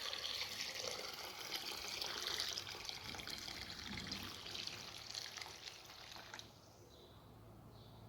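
Water running from a kitchen tap in a steady hissing stream, cut off abruptly about six and a half seconds in.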